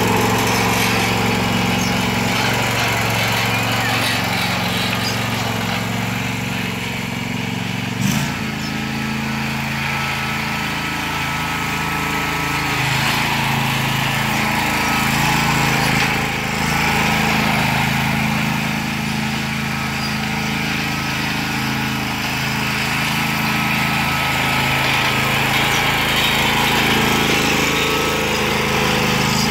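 Engine of an Exmark Turf Tracer 48-inch walk-behind commercial mower running steadily while the mower is driven across the lawn. About eight seconds in there is a brief knock and the engine note shifts slightly.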